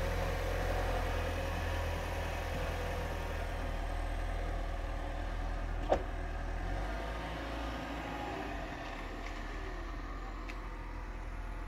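A small hatchback car's engine running as the car backs down a driveway and pulls away, the sound easing off about seven seconds in. There is a single sharp click just before the middle.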